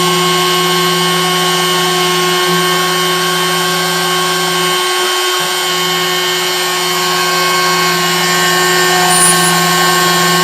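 Stepcraft 600 CNC machine's spindle running steadily with a small drill bit while drilling holes through a single-sided PCB, a constant whine, with a brief change in its low hum about five seconds in.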